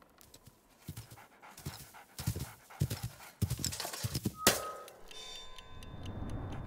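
Quick, shaky panting breaths from a frightened cartoon character. About four and a half seconds in comes a sharp click, followed by a steady electric hum with light, regular ticking.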